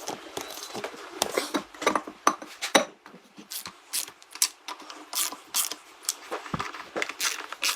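Irregular clinks and taps of metal tools and parts being handled, many short sharp knocks in quick succession.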